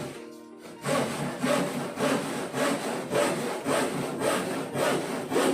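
Hand saw cutting through wood in steady back-and-forth strokes, about two a second, starting after a brief pause.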